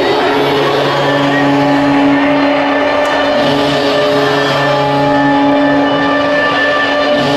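Music over the arena loudspeakers, with long held low notes that break off and resume every few seconds.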